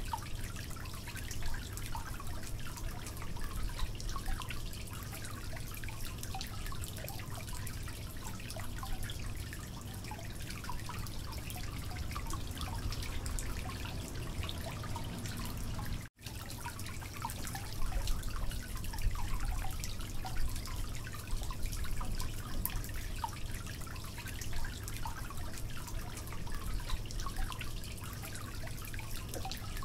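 Metal spoon stirring and scooping thick, wet marinated mutton in a glass bowl and into a pot: a run of small wet clicks and squelches over a steady low hum, breaking off for an instant about halfway.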